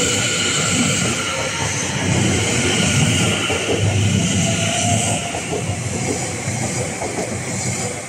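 Greater Anglia Class 720 electric multiple unit passing close by: a steady rumble of wheels on the rails with a hiss of rail and air noise. It eases off somewhat over the last few seconds as the train goes by.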